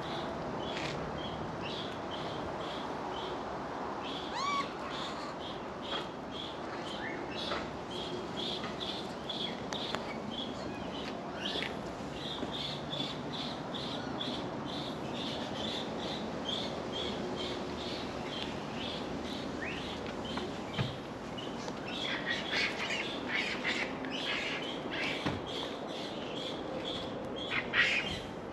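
Outdoor animal calls: a long series of short, high chirps repeating about twice a second, with one rising call about four seconds in and a denser flurry of chirps and squawks near the end.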